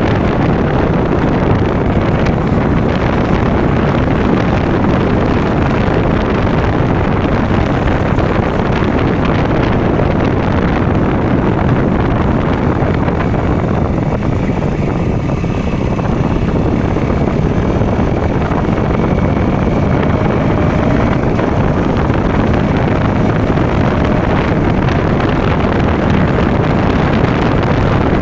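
KTM Duke single-cylinder motorcycle engine running steadily under way, with wind buffeting the microphone; the engine eases off briefly about halfway through.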